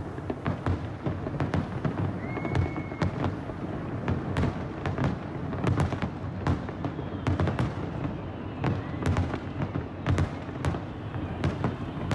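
Fireworks display: a rapid, irregular run of sharp bangs and crackles over a constant low rumble of booming shells.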